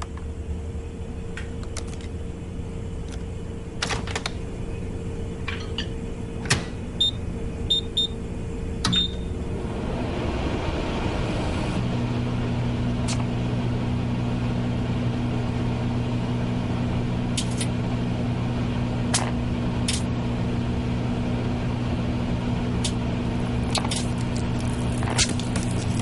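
Microwave oven being set and started: a few clicks and four short high keypad beeps, then the oven runs with a steady electric hum. A Nokia phone heats inside it, giving scattered sharp cracks and a hissing crackle that builds near the end as it begins to melt and smoke.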